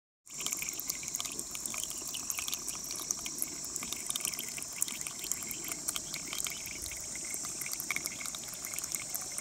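Water seeping out of a mossy rock face and trickling down in a thin stream, with many small drips and splashes. It begins a moment in, right after a brief silence.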